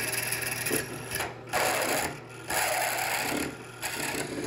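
Drill press boring a tap-drill hole for 3/4"-10 threads through 1-inch steel plate: the bit cutting with a rough, scraping noise over the steady hum of the motor. The cutting noise eases off briefly twice, about a second and a half and two seconds in.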